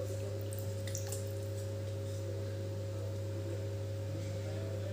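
Raw chicken pieces squelching and water lapping faintly as a hand rubs them clean in a steel bowl of water, mostly in the first two seconds. A steady low hum runs underneath and is the loudest sound.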